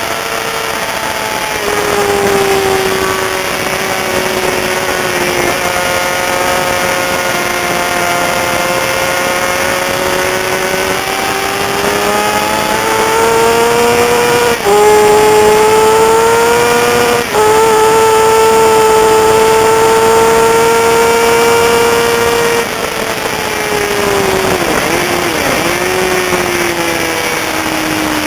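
Racing sportbike engine at high revs under race load. The pitch sags, then climbs steadily and drops sharply twice about halfway through as the rider shifts up. It holds high for several seconds, then falls away with a wavering dip near the end as the bike slows for a corner, and picks up again.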